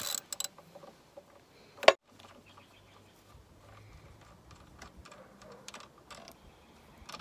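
Socket ratchet clicking in quick strokes as a 13 mm bolt is worked loose, then one loud, sharp metal clank about two seconds in, followed by faint ticks of hand work on the loosened bolt.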